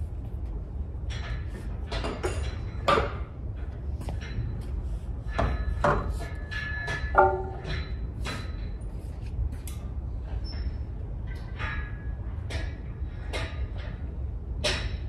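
Gym ambience: a steady low hum with scattered, irregular clicks and knocks, and a short ringing clank about seven seconds in.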